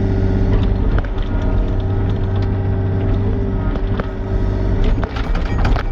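Mini excavator's diesel engine running steadily, with scattered clanks and scrapes of the bucket and tracks working against rocks, coming thicker near the end.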